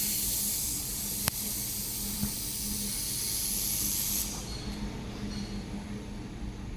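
Steady high hiss of a 2 kW fiber laser welding machine running a weld, stopping sharply about four seconds in, with a single click about a second in and a faint steady hum from the machine underneath.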